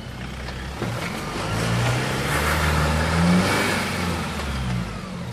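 Jeep Wrangler JK's engine revving under load as it tries to climb a rock step: the pitch rises for about two seconds, peaks past the middle, then eases off. A rushing hiss swells and fades along with the rev.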